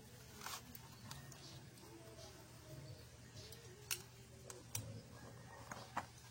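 Faint, sparse clicks of small metal parts as the starter clutch (Bendix) rollers and springs are worked into the hub, about four clicks over several seconds, over a low steady hum.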